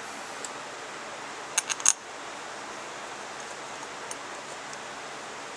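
Three or four sharp metallic clicks in quick succession a little under two seconds in, from the cast halves and screws of a Carter mechanical fuel pump being handled during reassembly, with a faint tick before and after, over a steady hiss.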